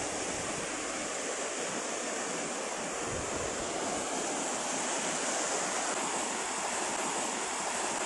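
Waterfalls pouring over rock ledges into a pool, giving a steady rushing sound of falling water.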